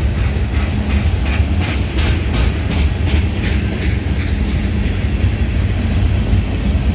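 Tank cars of a CSX freight train rolling past with a steady low rumble. Their wheels clack over the rail joints about three times a second, and the clacks thin out about halfway through.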